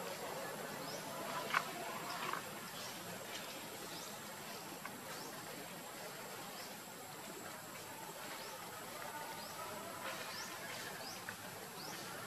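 Quiet outdoor ambience: a steady hiss with faint, short, high chirps recurring about once a second, and a few soft clicks in the first couple of seconds.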